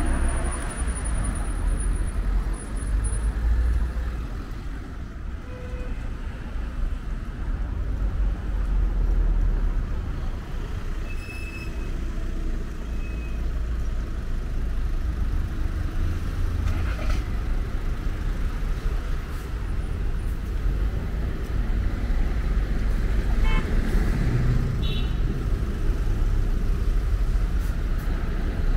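Street traffic: cars and a coach running and moving slowly past close by, a steady low rumble with a few short high chirps.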